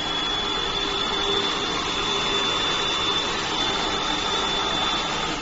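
New Magic NS-5 cold spark machine spraying a fountain of sparks: a steady rushing noise with a high steady whine over it, which stops suddenly near the end.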